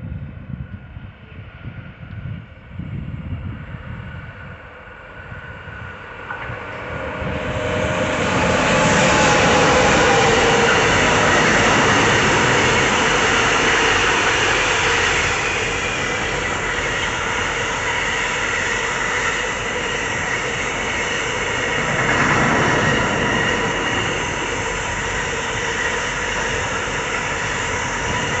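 Coal train of loaded open freight wagons running past on the rails. It grows loud about eight seconds in, then settles into a steady rolling noise of wagon wheels on track.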